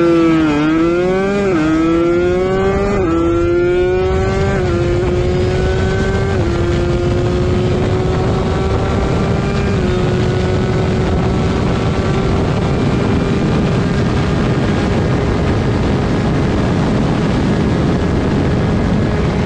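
A vehicle engine accelerating hard through the gears: its pitch climbs and drops at each of about five upshifts, each gear held longer than the last. It then settles into a steady high pitch at speed.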